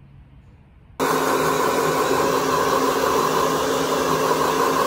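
Hand-held hair dryer blowing on wet hair: a loud, steady rush of air over a low motor hum. It cuts in suddenly about a second in, after faint room tone.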